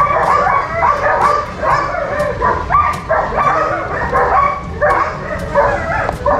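Dogs barking and yelping over and over, several barks a second, overlapping without a break.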